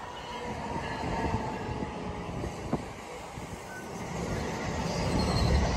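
New Jersey Transit double-deck commuter coaches rolling past at close range as the train arrives: a steady wheel-and-rail rumble with a few sharp clicks, growing louder and deeper near the end.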